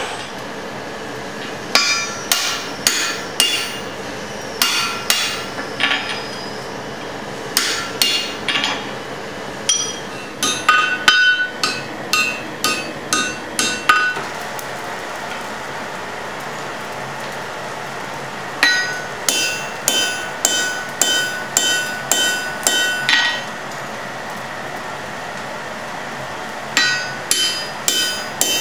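Blacksmith's hammer striking on an anvil in short bursts of a few to about ten blows, roughly two a second, each blow ringing with a bright metallic tone; pauses between the bursts. In the last burst the hammer drives a handled punch into a red-hot iron bar on the anvil.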